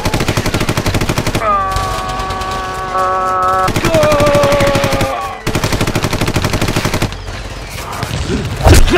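Rapid automatic machine-gun fire in two long bursts, with a held pitched sound between them and a single loud bang near the end.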